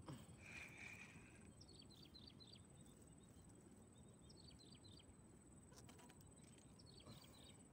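Faint open-air ambience with a small bird giving three quick runs of short, high, falling chirps. A thin steady high tone sounds underneath.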